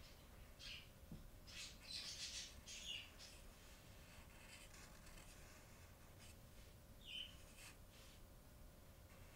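Faint squeaks and scratches of a broad-tipped marker drawn across paper in short strokes while letters are written, with a cluster of strokes about two to three seconds in and a few more near seven seconds.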